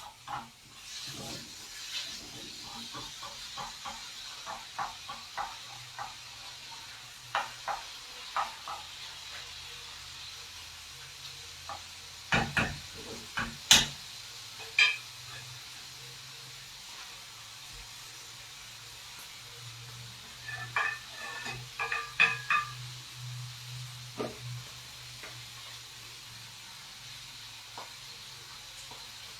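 Food sizzling in a frying pan with a steady hiss, while a utensil taps and scrapes against the pan. There is a run of ringing metallic clinks about two-thirds of the way through.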